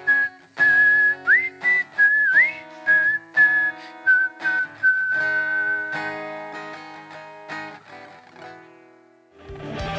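A man whistling a melody with a few upward slides over strummed acoustic guitar chords. The whistling stops about six seconds in and the guitar rings out and fades, then loud band music comes in just before the end.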